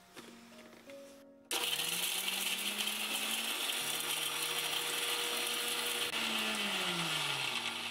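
Electric mixer-grinder grinding dry whole spices to a fine powder. It starts suddenly about a second and a half in, its motor pitch rising as it spins up, runs steadily and loud, then winds down with a falling pitch near the end.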